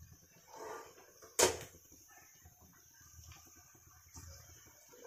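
Cookware handling over a kadai: a soft scrape under a second in, then one sharp clack of a utensil against the pan about a second and a half in, the loudest sound, followed by a few faint small knocks.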